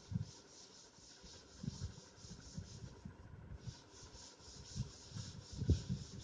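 A cloth wiping chalk off a chalkboard in rapid back-and-forth strokes, with a short pause about three seconds in. A few dull knocks, the loudest near the end.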